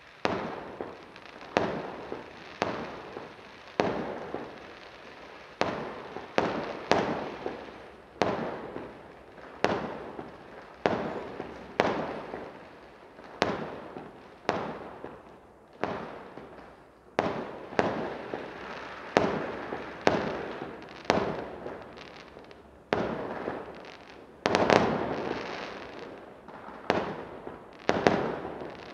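Aerial fireworks bursting one after another, a sharp bang roughly every second or so, each fading away over about a second. The bursts come thicker and louder a little before the end.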